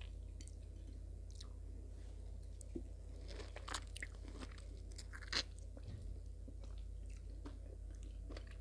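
A person chewing and biting tangerine segments: scattered soft mouth clicks, a few louder bites about three to five and a half seconds in, over a steady low hum.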